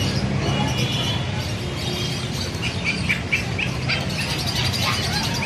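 Short high-pitched animal chirps, a quick run of them about halfway through, over a steady low background hum of the pet shop.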